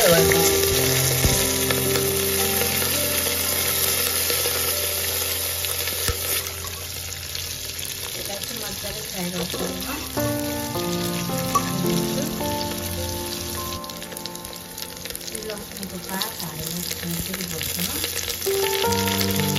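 Dried buffalo meat sizzling and frying in hot spiced oil in a pot, being stirred with a ladle. The sizzle starts suddenly as the meat goes in, then settles slightly softer about two-thirds of the way through.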